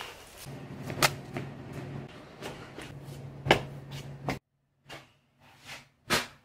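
A few sharp knocks and clatters over a steady low hum. The hum cuts off abruptly about two-thirds of the way through, and a sharp clack comes near the end.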